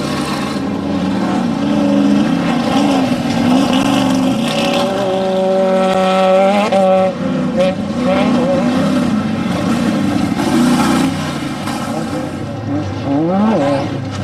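Off-road desert race vehicle engines running hard, the pitch rising and falling with the throttle. The pitch holds level for a couple of seconds near the middle, then climbs sharply, and climbs again near the end.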